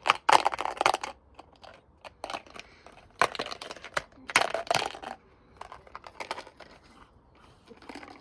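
Irregular crinkling and rustling handling noises with short clatters, like plastic or paper being crumpled and moved about.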